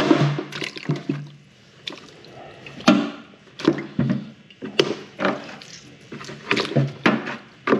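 Live abalone being dropped one after another into a bucket of water: a series of irregular clunks and splashes.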